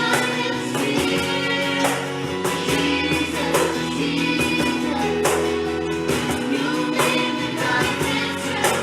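Christian worship music: voices singing a song over instruments, with a steady beat.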